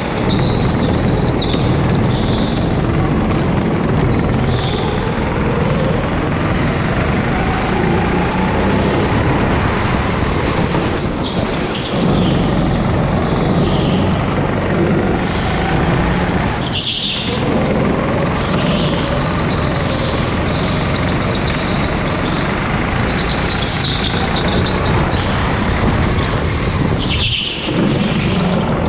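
Go-kart engine heard from onboard, running under throttle with its pitch rising and falling through the corners, dipping sharply for a moment about two-thirds of the way through and again near the end.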